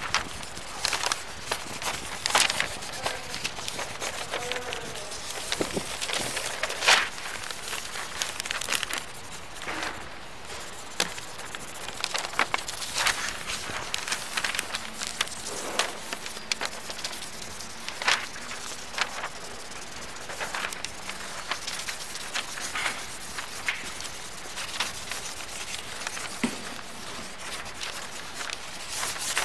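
Scratchy crackling: a dense, irregular run of small clicks and scrapes over a steady hiss.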